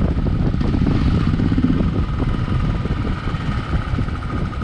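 Motorcycle engine running steadily under way, heard from the rider's seat.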